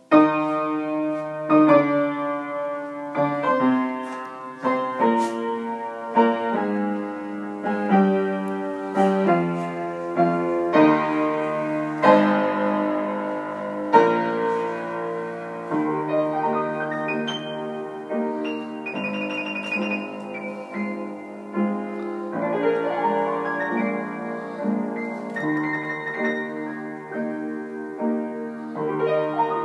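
Upright piano being played, starting abruptly with a run of full chords that change about once a second.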